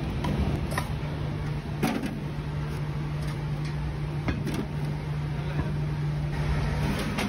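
A steady low mechanical hum with scattered knocks and clicks over it; the hum stops near the end.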